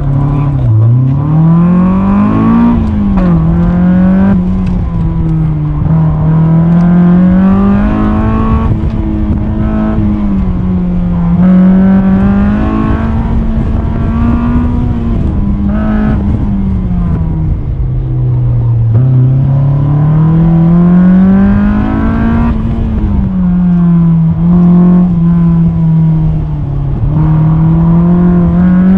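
Honda S2000's four-cylinder engine heard from the open cockpit, its revs rising and falling over and over as the car accelerates and lifts on and off the throttle through an autocross course.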